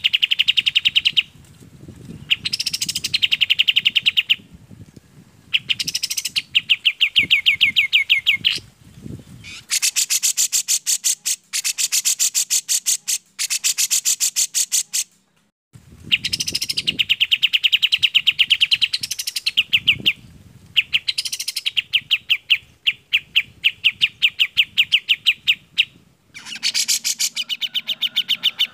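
Recorded bulbul song: phrases of rapid, chattering repeated notes, several opening with a high falling note and separated by short pauses. In the middle is a longer run of harsher, scratchier rapid notes.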